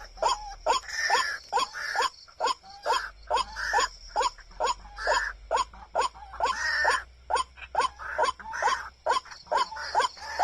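White-breasted waterhen calls: a fast, even string of short, sharply rising croaking notes, about three a second.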